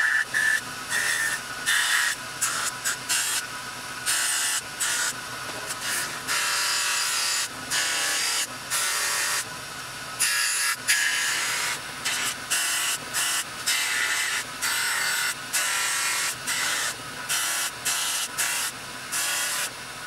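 Cloth buffing wheel spinning on a polishing machine, hissing as the metal lighter case is pressed against it and lifted off again and again, so the hiss comes and goes in short stretches with brief gaps.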